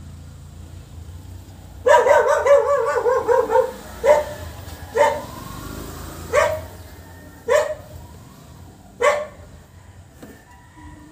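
Dog barking: a rapid run of about eight barks about two seconds in, then single barks every second or so.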